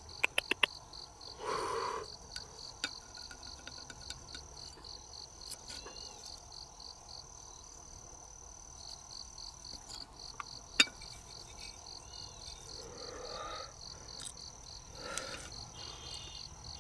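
Insects calling steadily in the background, a high, evenly pulsing trill, with a few sharp clicks scattered through, the loudest about eleven seconds in.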